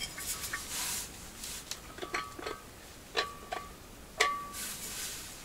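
A steel thermos being opened by hand: the cap and stopper twisted loose, with rubbing, several sharp clicks and short squeaks, the sharpest about four seconds in.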